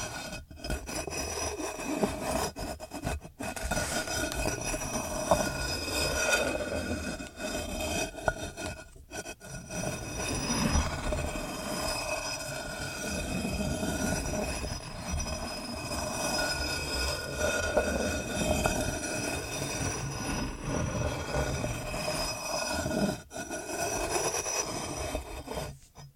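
Stones grinding against each other in a long, low, continuous scrape, with a few brief breaks in the grinding.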